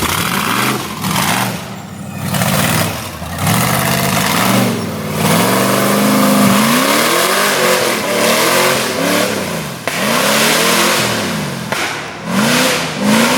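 A 6.0-litre LS V8 engine revving hard over and over, its pitch rising and falling about once a second; loud enough to be joked about as over a 95-decibel limit.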